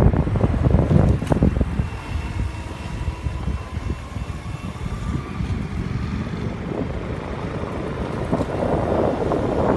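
Wind buffeting the microphone on a moving vehicle, over a low rumble of travel. The gusts are strongest at the start and again near the end, and a faint steady tone runs through the middle.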